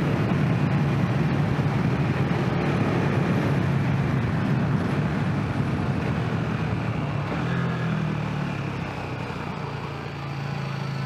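Motorcycle engine running at road speed under a heavy rush of wind noise. The engine note shifts about seven to eight seconds in, dips near ten seconds, then settles into a steady drone.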